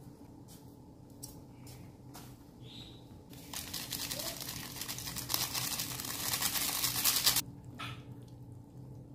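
A small foil seasoning sachet crinkling and being torn and shaken out over a wok, a loud crackly rustle from about three and a half seconds in that stops abruptly about four seconds later, over a low steady hum.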